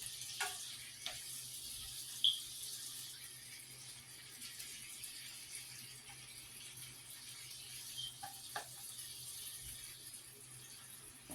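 Shrimp sizzling in a frying pan: a steady hiss, with a few light clicks and one short sharp clink about two seconds in.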